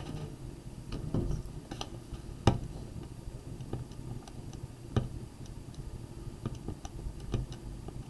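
Calculator buttons being pressed one at a time in an irregular string of light clicks, while 1.84 × 10 + 60.89 is keyed in. A couple of presses, about two and a half and five seconds in, are sharper than the rest.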